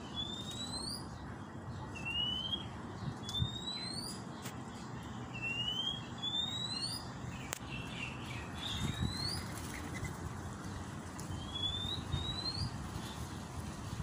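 A murai (magpie-robin) calling: a series of about a dozen short, rising whistles at irregular spacing, with a pause of about two seconds in the second half, over a low background hum.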